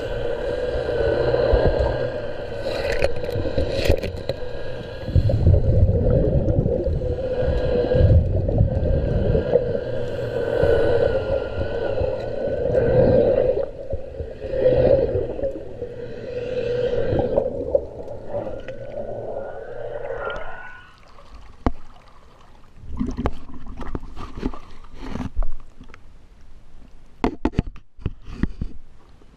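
A steady mechanical hum heard underwater, with low rumbling and water noise under it, during hull cleaning; it stops about 21 seconds in. Scattered sharp knocks and splashes follow as the camera comes up at the waterline.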